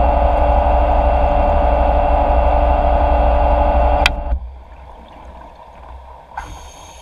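Underwater scooter (diver propulsion vehicle) motor running steadily, a whine over a deep rumble, heard through the camera housing. About four seconds in there is a sharp click and the motor sound stops abruptly, leaving a faint water hiss.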